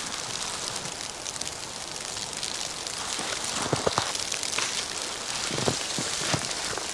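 Steady hiss of a snowstorm, wind-driven snow falling around the microphone, with a few soft low thuds about halfway through and again later.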